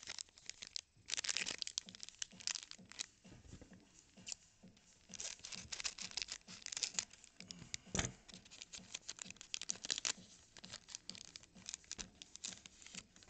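Foil wrapper of a baseball card pack crinkling and tearing as it is opened and crumpled, a dense run of irregular crackles.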